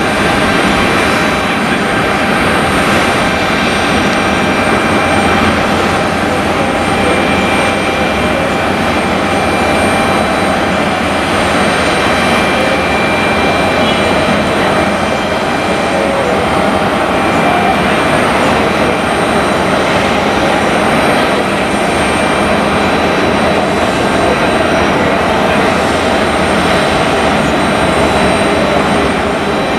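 Jet airliner engines running, a loud steady noise with faint high whining tones held throughout.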